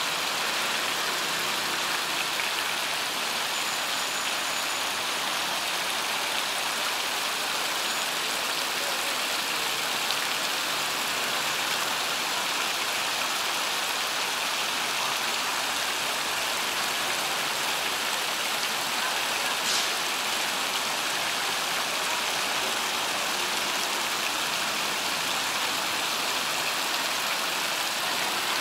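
Rows of small fountain jets splashing into a shallow pool, a steady hiss of falling water.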